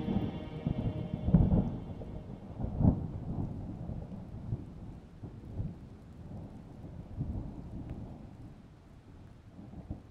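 Wind buffeting the microphone in irregular low rumbling gusts, strongest in the first three seconds and easing off near the end.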